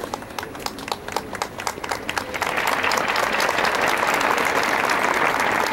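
Audience applause: scattered claps at first, swelling into full, steady applause about two and a half seconds in.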